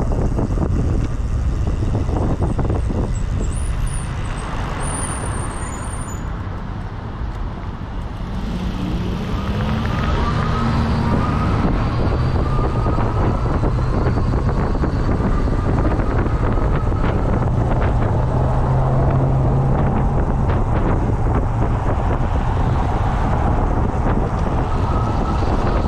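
Wind buffeting the microphone of a moving e-bike, with road traffic going by. A faint whine rises slowly in pitch through the second half.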